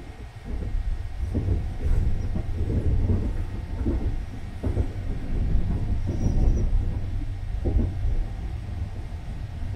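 Sunrise Express sleeper train (285-series electric train) running at speed, heard from inside a compartment: a steady low rumble with irregular knocks from the wheels and running gear. It gets louder about half a second in.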